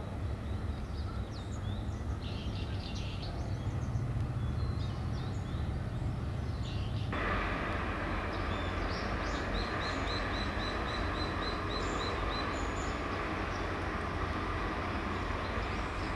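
Outdoor harbour ambience: a steady low distant rumble with small birds chirping. About seven seconds in, the background hiss suddenly gets louder, and a little later a bird gives a rapid trill of about a dozen even chirps.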